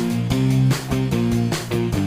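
Background music with plucked and strummed guitar over a steady beat.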